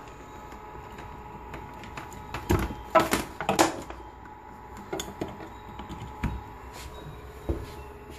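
Several scattered knocks and bumps, the loudest a cluster about three seconds in, over a faint steady electrical hum.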